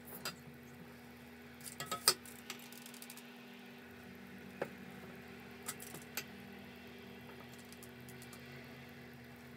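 A plastic spatula scraping and knocking against a stainless steel mixing bowl and metal springform pans as thick cake batter is scooped out: scattered light clinks, the sharpest about two seconds in, over a faint steady hum.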